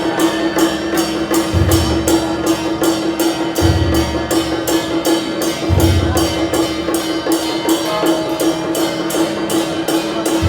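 Temple procession music with percussion: a fast, even beat of sharp strokes about four a second over a steady held tone, with a deep drum stroke about every two seconds.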